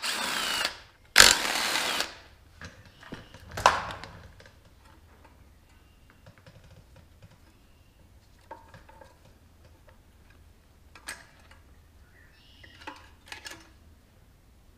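Cordless drill-driver spinning out the 10 mm bolts on the air-filter housing of a Honda GC160 engine: two short runs of the motor in the first two seconds and a brief one at about three and a half seconds. After that, light clicks and clatters of the plastic housing and loose parts being handled.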